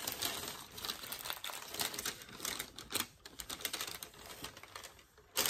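Sheet of paper crinkling and rustling as it is handled, with a run of irregular small clicks and taps, and one sharper tap near the end.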